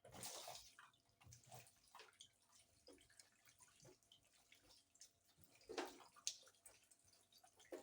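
Faint water splashing and dripping as tomatoes are washed by hand, with a couple of louder splashes about six seconds in.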